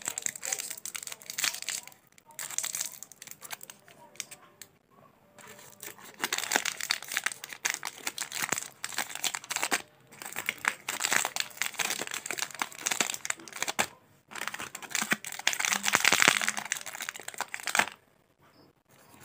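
Plastic and foil sweet wrappers crinkling in irregular bursts as packets are picked up and moved around by hand, with short quiet gaps between.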